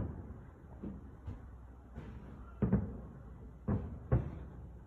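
Distant aerial fireworks bursting: a string of sharp booms, each with a short echo. One loud bang comes at the start, a few fainter ones follow, and a cluster of four loud ones falls in the last two seconds.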